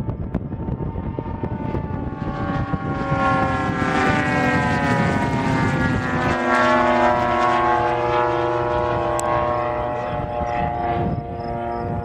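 50cc gas engines of large radio-control aerobatic planes flying overhead, a steady propeller drone whose pitch rises and falls as they manoeuvre. It is loudest with a drop in pitch about six seconds in, as a plane passes close.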